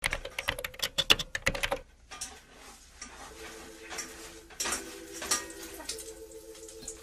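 Kitchen cooking sounds: a quick run of clattering clicks from utensils and dishes in the first two seconds, then quieter clinks and scraping. A faint steady tone comes and goes from about three seconds in.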